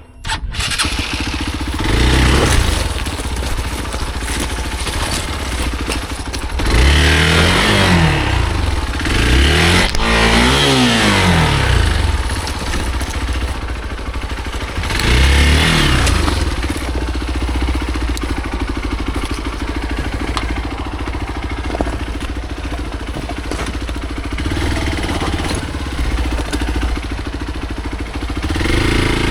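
Hero Xpulse motorcycle's single-cylinder engine running under way, revved up and back down several times, its pitch rising and falling with each burst of throttle.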